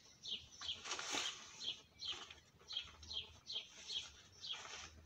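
A small bird chirping over and over, about two to three short high chirps a second, with the rustle of a fabric bag being handled about a second in and again near the end.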